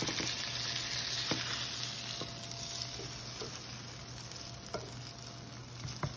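Mashed-potato cakes frying in olive oil in a pan: a steady sizzle that eases off slightly over the seconds, with a few faint ticks.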